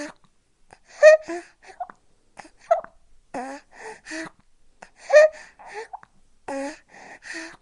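Baby sucking at a feeding bottle: an irregular run of short sucking and gulping sounds, about two a second, many with a little squeaky sound from the throat that slides up or down in pitch.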